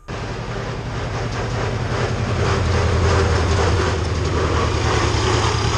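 Old farm tractor's engine running as it drives close past, pulling a wooden-sided trailer: a loud, low, rapid chugging that grows louder over the first few seconds.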